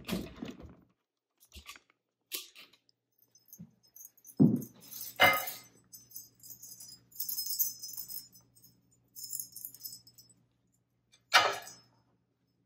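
Small metal bells tied to a cloth napkin jingling as the napkin is handled, with a few sharp knocks as it is set down on a plate, the loudest near the end.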